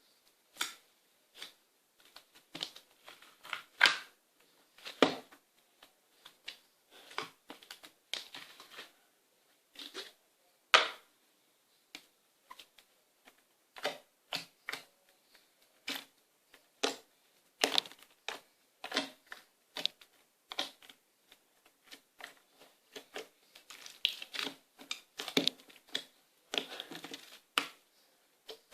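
Slime being squeezed and worked by hand, making irregular sticky pops, clicks and squelches with short pauses between them.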